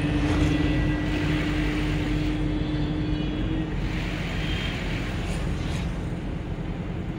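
Engine and road noise inside the cab of an old vehicle driving at speed along the road. A steady tone sounds over the first three or four seconds, then fades.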